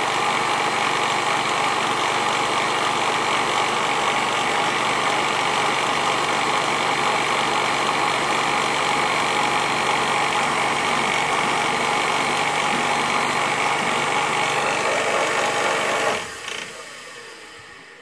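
Emco Compact 5 benchtop lathe running steadily under power, its tool taking a cut along a turning shaft fed by the stepper motor. About sixteen seconds in the sound drops off suddenly and fades as the spindle winds down.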